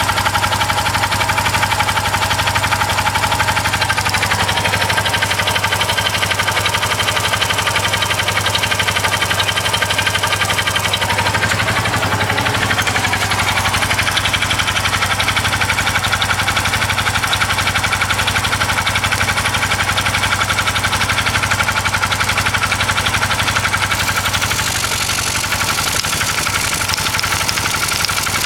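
Engine idling steadily with a rapid, even pulsing. This is the unfamiliar engine noise the owner is trying to pin down, along with crankcase blowby.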